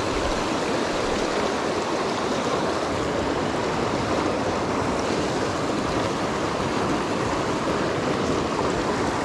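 Mountain stream rushing steadily through rocky riffles, running high and fast with winter storm runoff.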